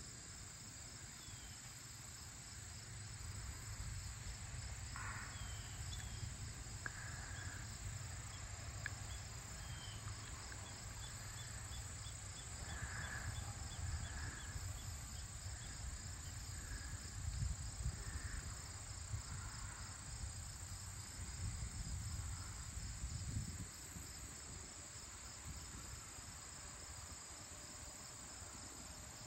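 Late-summer evening chorus of crickets and other insects: a steady high trill with a faster pulsing chirp alongside it. Under it is a low, wavering rumble, and a few scattered short chirps come in the first twenty seconds or so.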